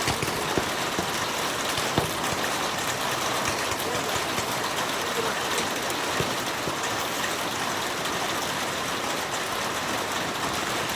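Heavy rain pouring down, a steady, even hiss, with a few sharp clicks about 2 and 6 seconds in.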